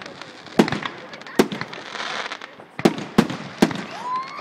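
Aerial fireworks bursting close overhead: about five sharp bangs, the last three in quick succession, with crackling between them and a rising whistle near the end.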